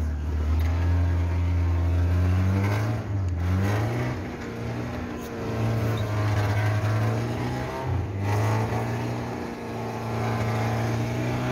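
Car engine heard from inside the cabin while driving, its note dipping and then climbing again a few times, about three and eight seconds in.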